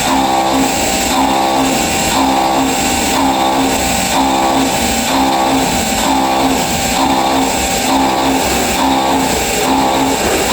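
CNC milling machine cutting aluminium with an end mill on a high-speed dynamic toolpath: a steady spindle and cutting whine that swells and eases in a regular cycle about every two-thirds of a second as the cutter loops in and out of the material.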